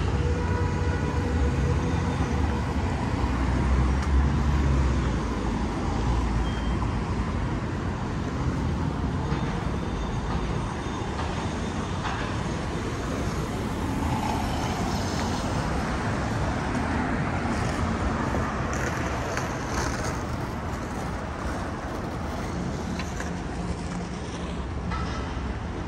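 City street traffic: cars passing and turning through an intersection, a steady low engine and tyre rumble that is loudest in the first few seconds and then eases.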